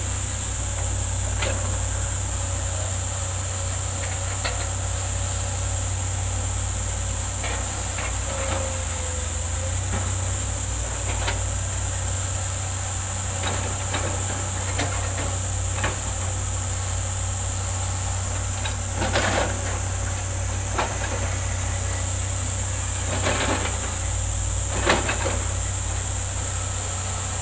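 Diesel engines of hydraulic excavators running steadily at a distance, with irregular sharp clanks and knocks as the buckets and booms work the earth. A steady high-pitched hiss runs over it.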